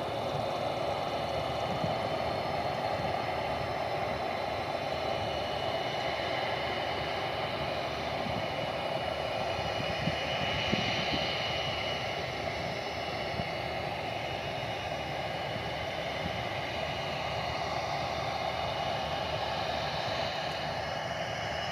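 Twin-engine jet airliner taxiing onto the runway, its turbofan engines running at low power as a steady rushing noise with a faint high whine. The whine grows a little stronger for a moment about ten seconds in.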